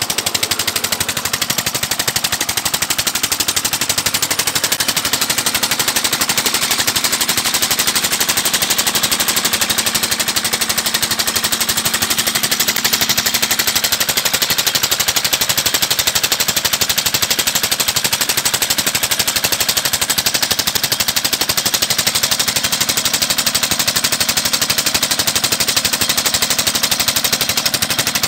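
Single-cylinder 23 hp Peter diesel engine running steadily under load as it belt-drives a tubewell water pump, its exhaust firing in rapid, even beats.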